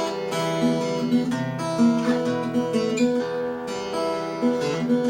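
Acoustic guitar playing an instrumental blues break, strummed and picked notes in a steady rhythm.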